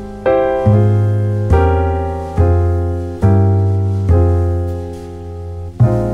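Background solo piano music: slow chords struck about once a second, each left to ring and fade.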